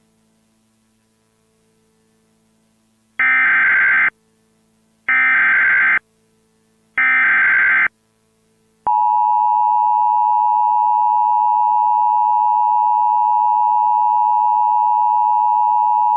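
Emergency Alert System SAME header: three identical bursts of shrill, modem-like data chirps, each about a second long, signalling the start of an emergency alert. About nine seconds in, the EAS two-tone attention signal (853 and 960 Hz together) begins, a steady harsh beep.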